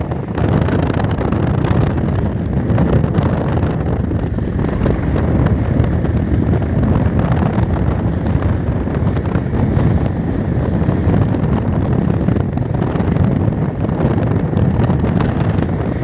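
Strong wind rushing over the microphone over the steady run of a small fishing boat's outboard motor and its hull through the water at speed.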